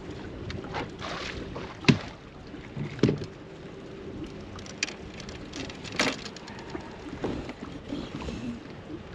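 Wind and water lapping around a fiberglass bass boat on choppy water, with a few sharp knocks and clunks on the boat, the loudest about two seconds in.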